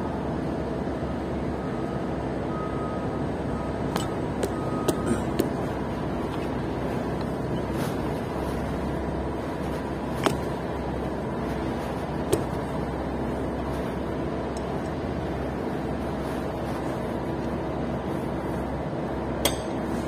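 Steady mechanical hum with a few sharp metallic clinks: a quick cluster about four to five seconds in, then single clinks scattered through the rest.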